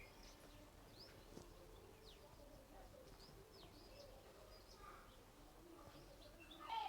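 Faint, scattered bird chirps: short, quick falling notes every second or so over a quiet background.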